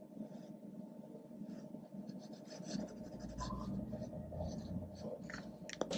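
Marker strokes scratching across kraft paper: a run of short, quick strokes as the grey tip shades the drawing.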